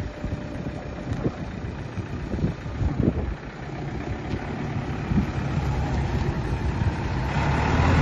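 Landini Powerfarm 100 tractor's diesel engine running as the tractor drives, growing louder over the second half as it comes closer. There are a few knocks in the first few seconds.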